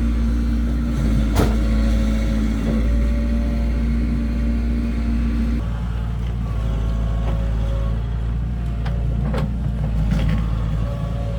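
Heavy diesel engine of construction machinery (excavator or dump truck) running steadily under work, with a few sharp metallic clanks; about halfway through the engine note shifts lower.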